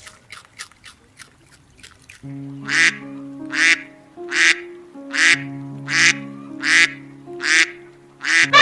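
A duck quacking seven times in an even rhythm, about one quack every three-quarters of a second, over background music with held notes. Faint light ticks come before the quacking starts.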